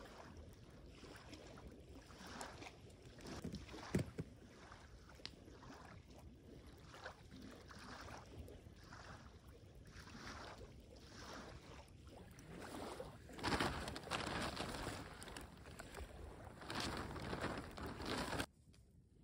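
Wood campfire burning on bare ground, with rhythmic whooshing gusts about every two-thirds of a second and a sharp crackling pop about four seconds in. The flame noise grows louder for the last few seconds, then cuts off suddenly.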